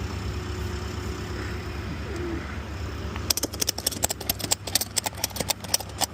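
Engine running steadily with a low hum. About three seconds in, a rapid, irregular run of sharp clicks and rattles starts over it.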